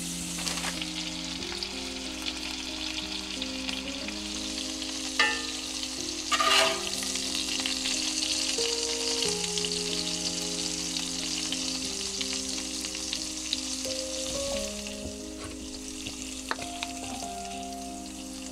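Onions and a burger patty frying in a cast iron skillet, with a steady sizzle. Two brief louder scrapes come about five and six and a half seconds in. Soft background music with slow held notes plays underneath.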